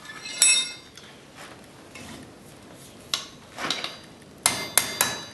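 Blacksmith's hammer and metal on an anvil: one ringing metallic clank about half a second in, a few softer knocks, then a quick run of ringing hammer blows, about four a second, near the end.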